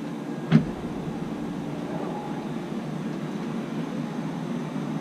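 Steady wind noise rumbling on the microphone, with one sharp knock about half a second in.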